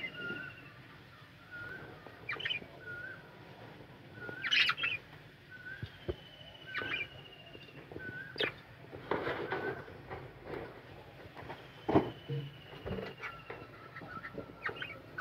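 Budgerigars chirping and chattering in short, separate calls, with a thin falling whistle that comes back about every six seconds and a sharp knock about twelve seconds in.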